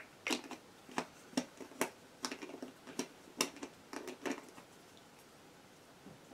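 Small objects being handled: a run of about a dozen irregular clicks and taps that stops about four and a half seconds in, leaving quiet room tone.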